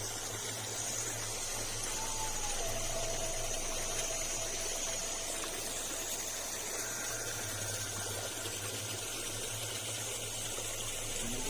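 Steady rushing noise under a constant low hum, with a few faint thin tones coming and going.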